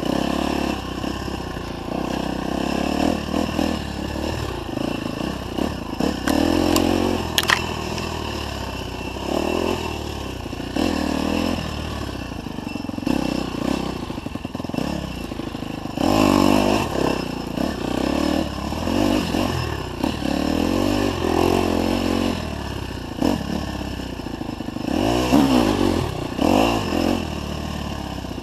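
Dirt bike engine running and repeatedly revving up and falling back as the bike rides a rough trail, with a few sharp knocks from the bike over bumps.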